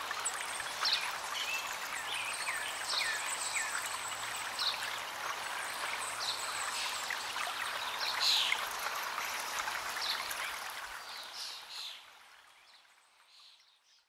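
A stream running over stones, with birds chirping repeatedly over it; it all fades out over the last few seconds.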